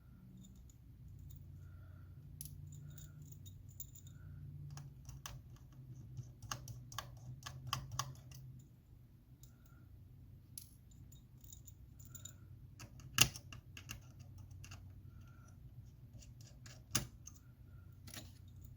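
Small metal clicks and taps of a precision screwdriver and tools backing out the tiny Y-tip screws of an iPhone 7 Plus battery-connector bracket. The clicks are scattered, with two sharper clicks in the second half. A low steady hum runs underneath.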